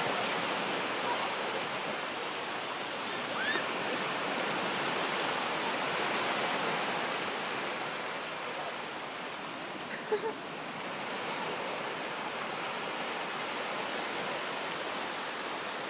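Atlantic surf washing onto a beach: a steady rush of small breaking waves, a little louder in the middle and easing after about ten seconds.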